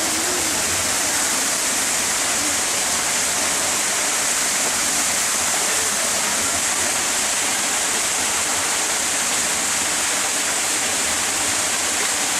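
Steady, unbroken hiss of rushing water, even in level throughout.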